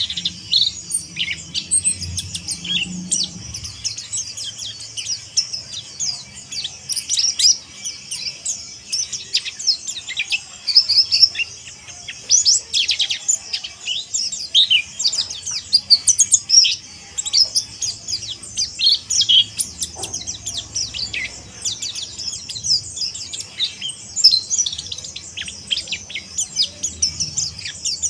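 Mountain white-eye (pleci monty, Zosterops montanus) singing a fast, rough twittering chatter of high, quick chirps and short slurred notes, almost without pause.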